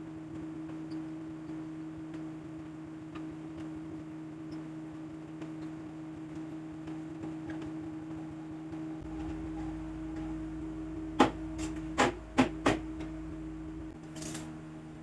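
A steady low hum, with four sharp knocks in quick succession about eleven seconds in, then a brief hiss.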